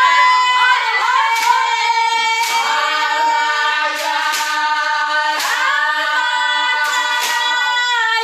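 A group of women singing together to their own hand clapping.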